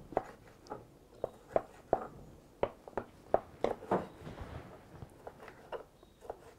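Kitchen knife knocking on a wooden cutting board while chopping: light, irregular taps, about two a second.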